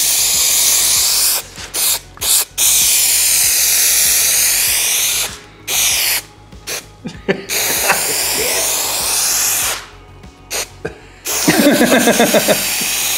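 Aerosol spray adhesive hissing out of the can in repeated sprays onto foam: a few long passes of two to three seconds and several short puffs, with brief pauses between.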